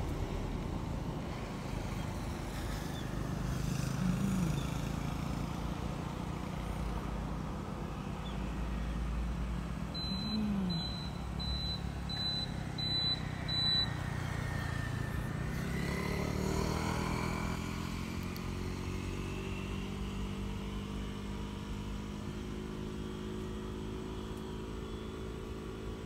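Motor vehicle engines running nearby, a steady low rumble, with one vehicle passing about halfway through as the engine pitch sweeps. A quick run of six short high peeps comes just before the pass.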